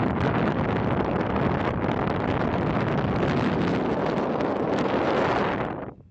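Strong wind buffeting the microphone, a dense, rumbling roar that cuts off suddenly near the end.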